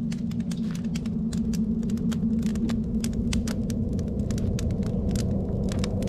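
Fire heating a pot of water: a steady low rumble with rapid crackling clicks.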